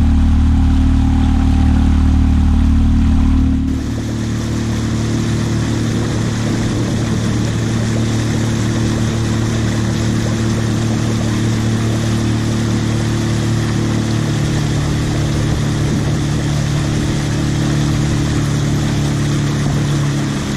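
Small outboard motor running steadily as a Gheenoe skiff cruises down a canal. About four seconds in the sound shifts abruptly, with more wind and water rush over the motor.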